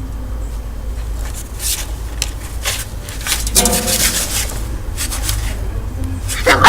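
Scattered scraping and rubbing sounds, then a two-month-old puppy gives a sharp, high-pitched bark near the end.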